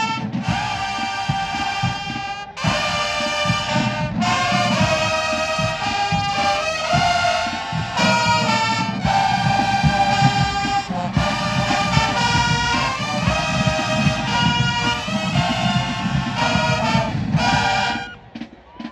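High school marching band brass section playing a loud tune in short, punchy phrases with brief breaks between them. The band cuts off sharply near the end.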